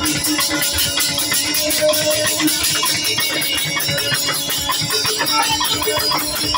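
Live band music at full volume: a drum kit keeping a steady beat, with other instruments playing over it.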